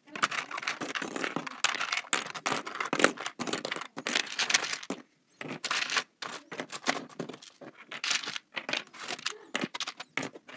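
Plastic LEGO-brick chess pieces clattering and rattling against one another as a hand rummages through them in a storage bin, in bursts with short pauses.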